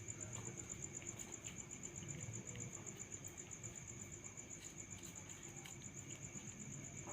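A steady high-pitched insect trill made of rapid, even pulses, with faint scattered clicks.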